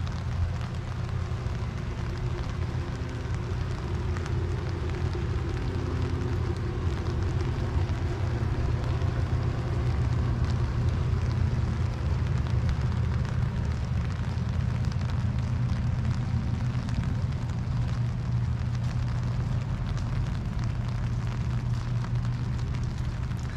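Steady rain falling, with a continuous low rumble underneath.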